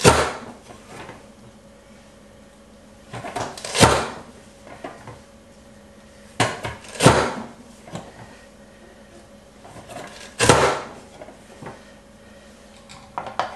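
PL8 push-down vegetable chopper pressed shut four times, about three and a half seconds apart: each press a brief crunch ending in a sharp clack as the lid drives poblano pepper pieces through the blade grid.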